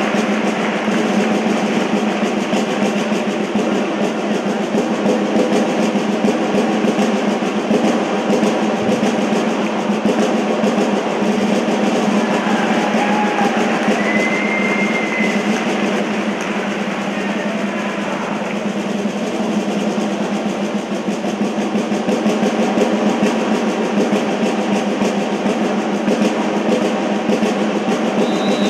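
Snare-type field drums of a flag-wavers' band playing a steady, unbroken rolling cadence.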